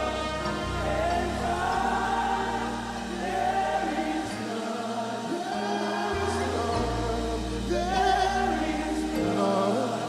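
Live gospel worship music: voices singing together over slow, held bass notes that change every second or two.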